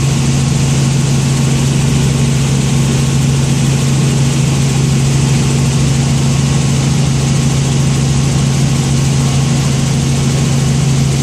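Helicopter in flight heard from inside the cabin: a loud, steady drone of rotor and engine with a strong low hum.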